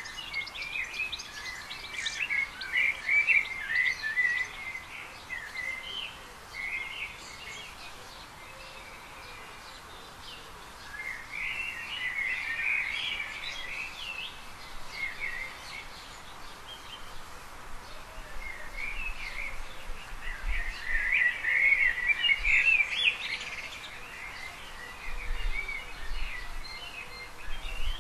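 Birdsong: quick chirping phrases in bouts of a few seconds with quieter gaps between, over steady background noise.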